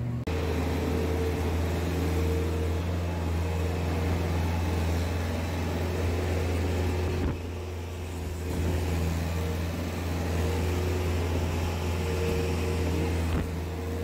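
Skid steer loader engine running steadily, heard from the operator's seat while the barn pen is being cleaned out.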